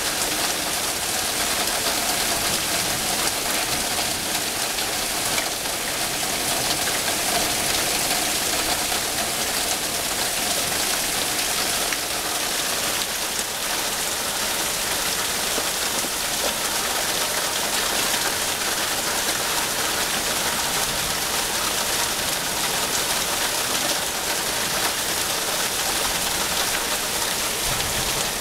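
Heavy rain falling steadily, a dense, even downpour.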